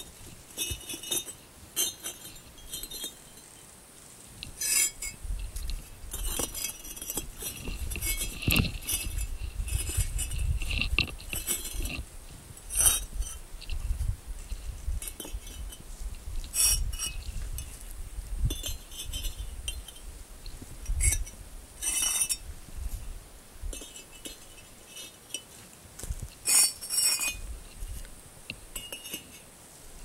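Fireclay refractory bricks clinking and scraping against one another as they are set dry, without mortar, onto a brick rocket stove, with sharp irregular knocks every few seconds.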